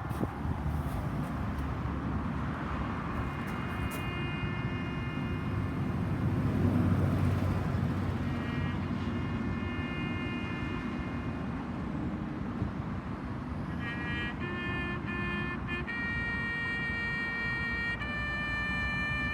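A bugle call played as long held notes that change pitch between phrases, over a steady low rumble.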